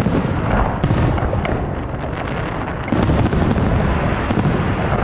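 Fireworks salute shells bursting in the sky: a rapid run of booms and sharp cracks over a continuous rumble, with one sharp report about a second in and a cluster of cracks from about three seconds in.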